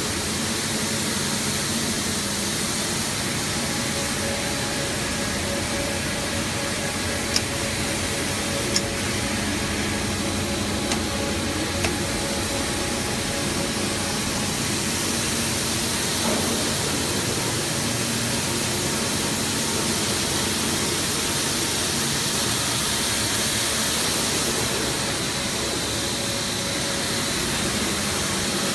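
Plastic pelletizing line running: a steady machine hiss with a low hum, broken by a few sharp clicks about a third of the way in.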